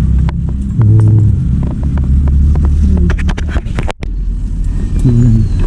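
Heavy diesel earth-moving machinery running with a deep steady rumble, with a quick run of sharp knocks about three seconds in and a brief break near four seconds.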